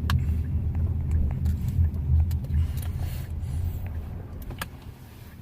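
Low road rumble inside a moving car's cabin, dying away near the end, with a few light clicks and knocks.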